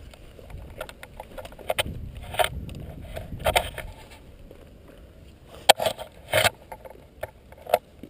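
Footsteps crunching on a dry dirt track, uneven and about one every second, with knocks and rattles from a carried airsoft rifle and gear, over a low rumble.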